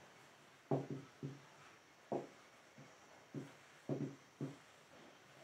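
Short, quiet bursts of a man's voice, a syllable or two at a time, at uneven intervals.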